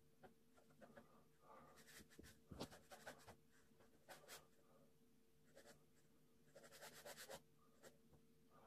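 Ballpoint pen scratching faintly across paper in several bursts of quick, short sketching strokes.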